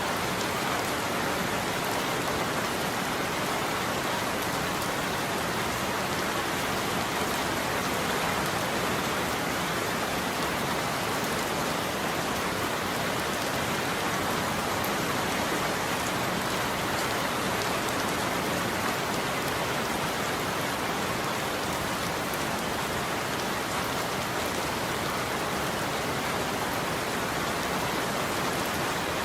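Steady heavy rain falling on a roof, an even hiss with no thunder heard.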